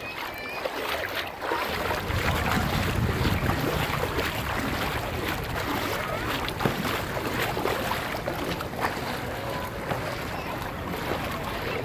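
Wind buffeting the microphone, a low rumble that comes in about a second and a half in, over gently lapping shallow water.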